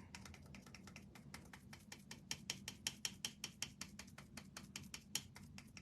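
Fast run of faint, light clicks, about eight a second, thinning out near the end.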